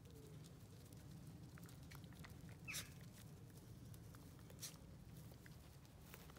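Near silence: faint scuffling and pattering of puppies' paws on a gravel track as they play around a lying cat, with two brief sharp sounds about three and four and a half seconds in.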